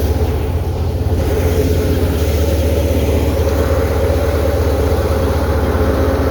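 Tractor engine running steadily at a constant speed, a dense low, unchanging machine sound.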